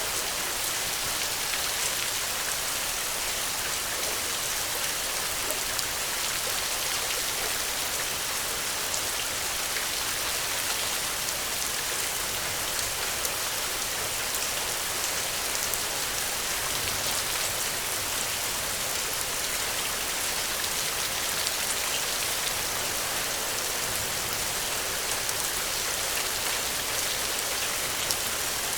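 Steady rain falling on the ground, a dense even hiss with many fine drop ticks and no let-up.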